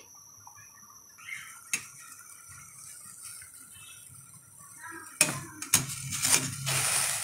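Wire spider strainer clinking and knocking against a steel pot and scraping through the cooking water as boiled liver pieces are scooped out. It is mostly quiet with a single click for the first few seconds, then a burst of metal clinks and a watery splash about five seconds in.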